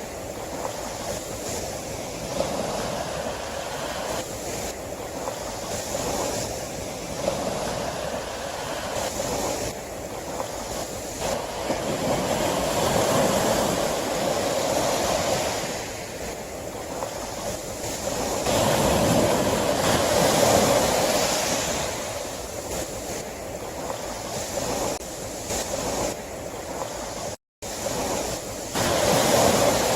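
Sea waves washing onto the shore, a steady rush of surf that swells and ebbs every few seconds. There is a brief drop to silence near the end.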